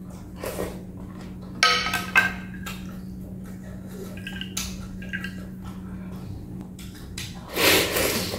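Eating at a table: a metal spoon and chopsticks clink against a glass bowl of soup, two sharp ringing clinks about two seconds in and lighter tinkles later, then loud slurping of broth from the spoon near the end. A steady low hum sits underneath.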